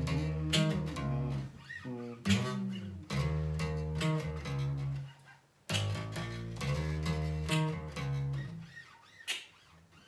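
Electric bass guitar plucked, playing a bass line: low notes in short phrases with brief pauses between them.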